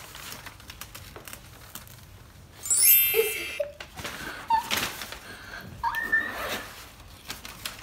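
Rustling and clicking of a fabric pet carrier being handled and opened, with one loud, high squeal about three seconds in.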